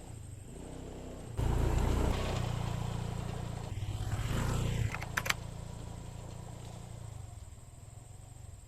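An engine running, jumping louder about a second and a half in and swelling around four seconds, with a few sharp clicks just after, then slowly fading away.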